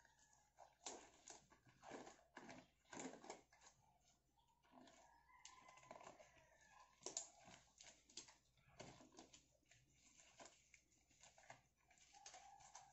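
Faint rustling with irregular small clicks and snaps of disposable exam gloves being pulled on and worked down over the fingers.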